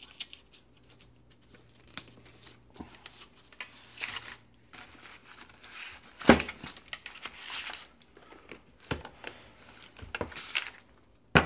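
Plastic wrapping crinkling and rustling as it is handled and pulled off a small safe, in irregular bursts with louder crackles about six and ten seconds in.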